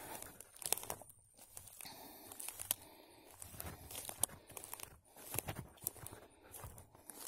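Dry pine cones and forest-floor litter crunching and crackling in irregular snaps as someone walks over and gathers pine cones.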